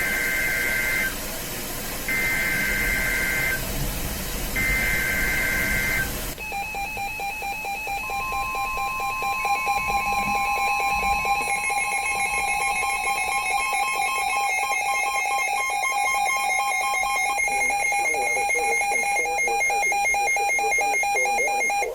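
Emergency Alert System SAME header: three one-second bursts of two-pitch digital data screech, about a second apart. About six seconds in they give way to the steady EAS attention tone that sounds an incoming warning and runs on.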